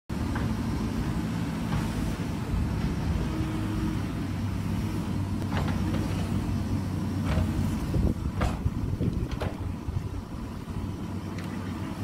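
JCB backhoe loader's diesel engine running steadily under load while the backhoe arm digs, with a few sharp knocks about halfway through.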